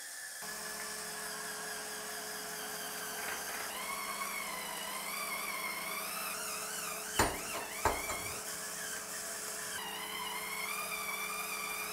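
JML Hurricane Spin Scrubber's motor whirring steadily as its brush head spins against the surface, with a whine that wavers in pitch. Two sharp knocks come a little past the middle.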